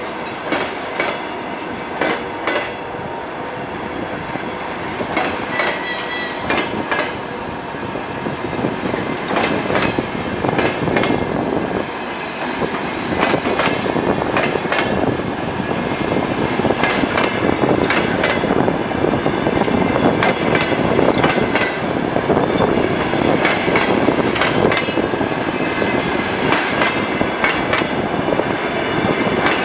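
Russian Railways passenger coaches rolling past as the train pulls away, gathering speed. The wheels click irregularly over the rail joints, and the rolling noise grows steadily louder.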